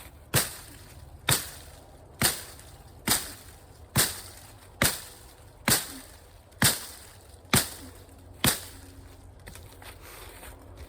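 Axe chopping branches off a small tree: about ten sharp, evenly spaced strikes, roughly one a second, stopping near the end.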